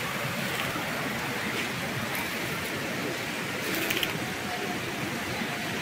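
Shallow rocky stream running over stones, a steady rush of water, with a few light clicks about four seconds in.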